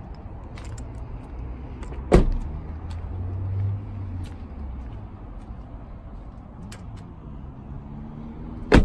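Doors of a 2010 Lexus RX350 shutting with a solid thud, twice: once about two seconds in and again at the very end.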